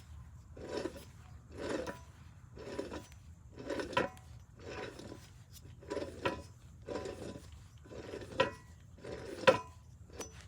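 Old driver's-side rear wheel hub bearing from a 2006 Subaru Forester, turned by hand, grinding and rasping in strokes about once a second with sharp metallic clicks: the worn, noisy hub that had to be replaced.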